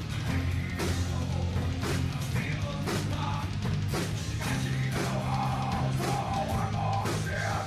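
Acoustic metal band playing: acoustic guitar, bass guitar and drum kit, with a heavy drum hit about once a second over steady bass notes.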